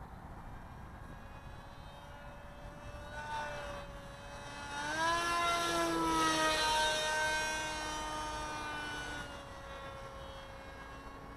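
Model forward-swept flying wing's motor and propeller whining as it flies by: the tone rises in pitch and gets louder about five seconds in, then slowly drops in pitch and fades as the plane passes and moves away.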